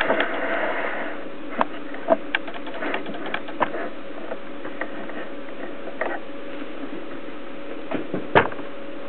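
Camera autofocus motor clicking at irregular moments over a steady hum, the sharpest click about eight seconds in.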